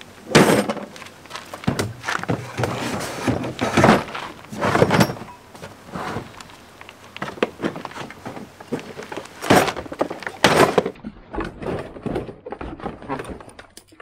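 Plastic toolboxes being handled and packed into a wooden crate: irregular clunks, knocks and scraping as the cases are set down and pushed against the wooden frame, with two loud knocks a second apart about two-thirds of the way through.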